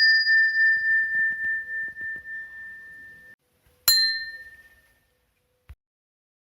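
Notification bell sound effect: a struck bell's single clear high tone rings on with a wavering, pulsing loudness for about three seconds and then cuts off abruptly. A second, shorter ding about four seconds in fades out within a second, followed by a brief soft click.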